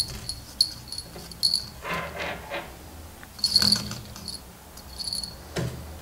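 Small bell taped to the spool handle of a winter tip-up, tinkling in short, irregular clusters of high rings as line is pulled off in jerks and the spool turns. The ringing is the tip-up's signal that a fish is still taking line. A little rustle of line and spool comes between the rings.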